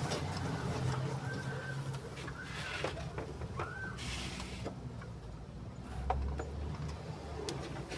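A bird calling a few short arched notes in the first half, over a steady low hum, with scattered light clicks and a brief hiss about halfway through.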